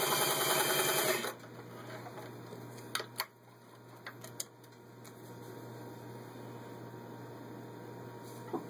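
Vintage 1961 Singer 503A sewing machine running at speed, stitching through four layers of vinyl upholstery, then stopping about a second in. After that come a few light clicks and knocks.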